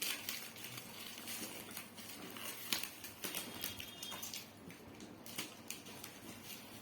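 Irregular rustling, crackling and small clicks of a parcel box and its packaging being handled and opened by hand.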